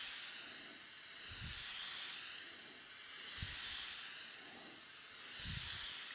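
Aerosol can of 3M Super 77 spray adhesive hissing steadily as a heavy coat is sprayed onto foam, the hiss swelling and easing about every two seconds as the can sweeps back and forth.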